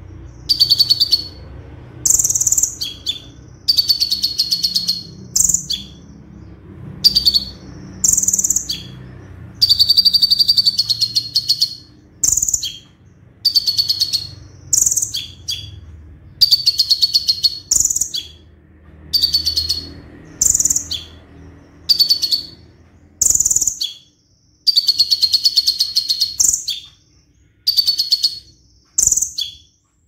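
Kolibri ninja (copper-throated sunbird) singing a 'roll tembak' song: high, rapid trilled bursts of about a second each, repeated over and over with short pauses between them. A faint low hum runs under the first part and stops about three-quarters of the way through.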